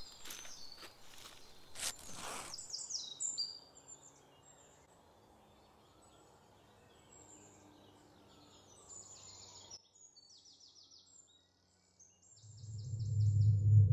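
Crunching steps in dry leaf litter for the first few seconds, then quiet bush with small birds calling in quick, repeated high chirps. Near the end a low droning music swell rises and grows loud.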